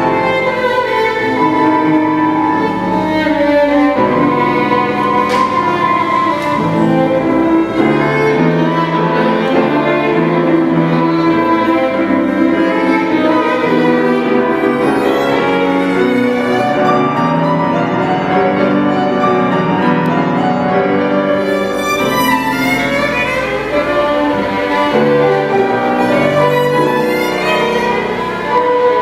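Live classical chamber music: bowed strings, with violin and cello, playing continuously, with piano.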